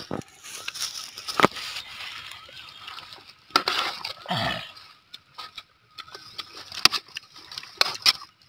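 A perforated metal ladle clinking and scraping against a steel serving pot as tempered raw mango slices are served, with several sharp clinks scattered a second or more apart.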